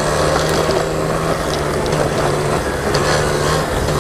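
Small 50cc quad's engine running steadily as it is ridden over hard, cracked dirt, its hum dipping briefly a couple of times, with scattered clicks and rattles from the beat-up machine.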